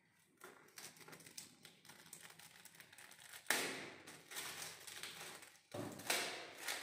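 Unwrapping a packed gift box of sweets: small clicks and taps of hands on the box and its wrapping, then two louder rustles of the packaging, one about three and a half seconds in and one near the end.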